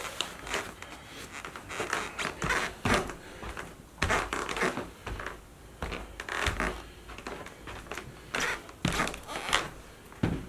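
Footsteps of new black leather Blundstone 068 Chelsea boots walking on a wooden floor and rug: irregular knocks and scuffs as the soles come down.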